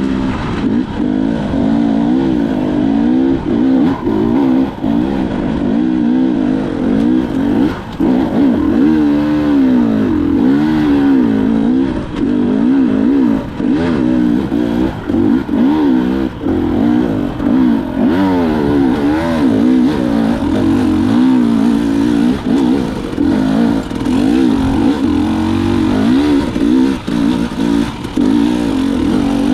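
KTM 300 XC-W two-stroke dirt bike engine being ridden, its pitch rising and falling constantly as the throttle is opened and closed.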